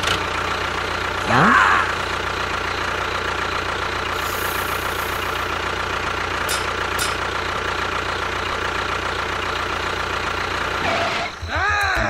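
A small motor or engine running steadily with an even drone. About a second and a half in there is a short rising whoosh. The running sound cuts off a little before the end, and a pitched sweep that rises and falls takes its place.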